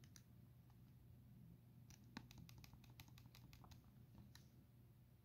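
Faint, quick clicks of a TI-84 Plus CE graphing calculator's keys being pressed, a few at first, then a rapid run from about two seconds in that stops near the end.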